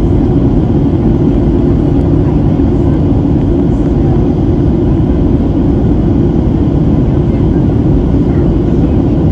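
Steady low roar of a Boeing 737-700's engines and airflow heard inside the passenger cabin.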